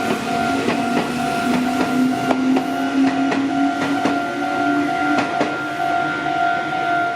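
Japanese level-crossing alarm ringing in a steady pulsing tone while an electric train passes, its wheels clacking over the rail joints and a low whine from the train rising slowly in pitch.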